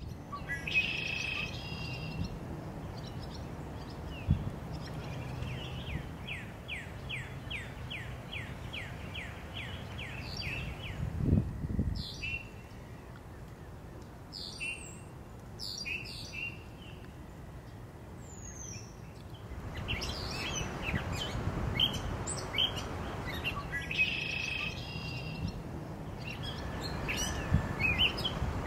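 Small birds calling and singing in a marsh, with short chirps and whistles throughout and a fast run of about three repeated notes a second in the first half. A steady low rumble lies underneath, and there is one brief low thump near the middle.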